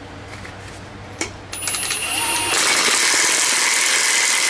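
Milwaukee Fuel cordless impact wrench starting about a second and a half in and then hammering steadily, driving a lug nut down a stud installer to pull a new wheel stud through the hub flange.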